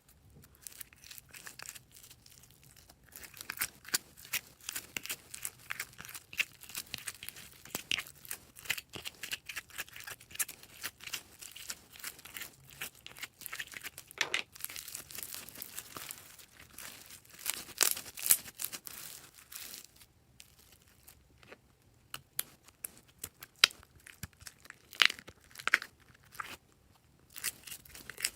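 Purple slime being squished, stretched and pressed by hand, giving dense runs of small wet pops and crackles. The crackling pauses briefly about two-thirds through, then comes back as a few sharper pops.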